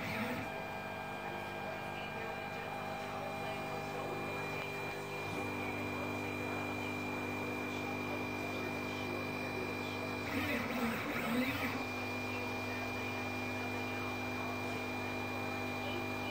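Stepper motors of a HE3D K280 delta 3D printer humming with several steady tones while it probes the bed during a G29 auto-leveling run. The hum changes tone about five seconds in, and about ten seconds in a louder, wavering motor whine lasts just over a second as the effector moves to another probe point.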